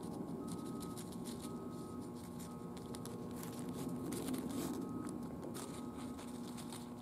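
Light rustling and faint tapping of a folded slip of paper as fleas are tipped off it into a small glass cup, over a steady low room hum.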